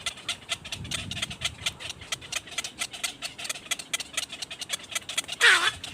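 Birds: a fast run of short clicks or chirps, about six a second, with one loud call sliding down in pitch about five and a half seconds in.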